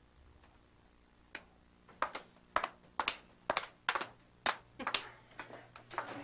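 Footsteps on a hard floor, a run of sharp knocks at about two steps a second, starting about a second in.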